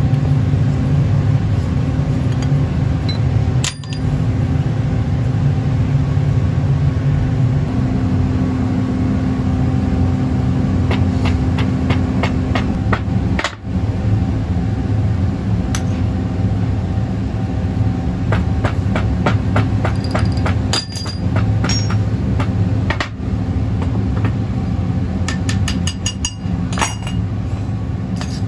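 Steady low machine drone, broken by a few brief dropouts, with two runs of quick, sharp taps, one a little before halfway and one near the end, as foundry sand is packed into a steel moulding flask.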